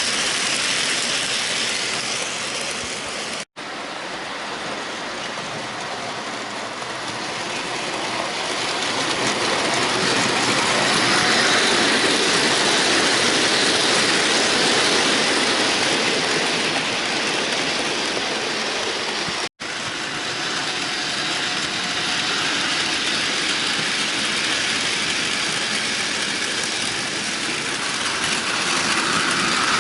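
Bachmann model train running around a layout: a steady electric motor and wheel-on-rail rumble that swells as it nears the microphone, loudest around the middle, with two abrupt cuts to silence.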